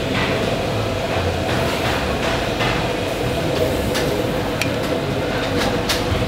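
Food-stall ambience: a steady mechanical hum, with a few sharp metal clinks of a ladle against a large aluminium stock pot in the second half.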